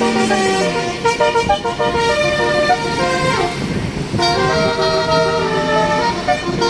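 Indonesian bus 'telolet basuri' multi-tone musical horn playing a loud melody of quick changing notes, several tones sounding together.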